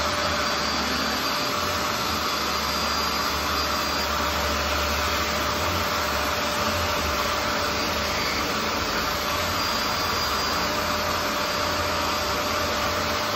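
BISSELL SpotClean Pet Pro portable carpet cleaner running steadily, its motor giving a constant whine under the rush of suction as the hand tool is drawn across the carpet.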